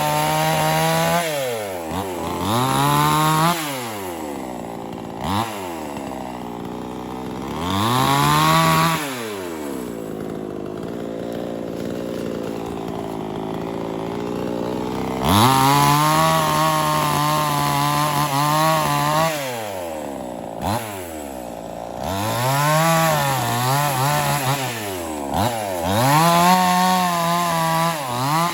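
Kingkong 5800 two-stroke chainsaw engine revving up and down over and over, its pitch rising to a high scream and dropping back. In the middle there is a longer stretch of about five seconds at a lower, steadier pitch.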